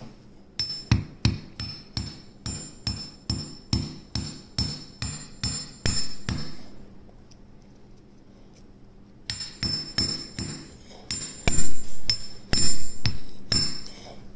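A claw hammer taps a steel pin into the bolt of a Grand Power Stribog SP9 A3, metal on metal with a short ring after each strike. The taps come about three a second in two runs with a pause of a couple of seconds between them, and a few of the strikes in the second run are harder.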